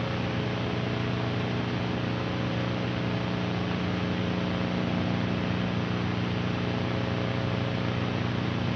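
Steady static hiss over a low, unchanging droning hum.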